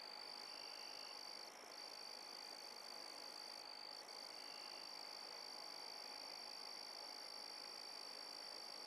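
Faint, steady, high-pitched trilling chorus of night-calling animals, unbroken except for a couple of brief dips.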